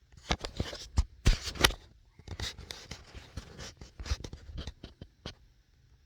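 A run of irregular scratching, rustling and sharp tapping sounds, loudest in the first two seconds and thinning out toward the end.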